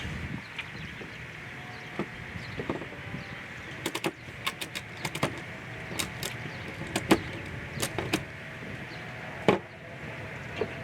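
A ratchet strap being worked: sharp clicks, in quick pairs and small clusters spread over several seconds, over a steady outdoor background.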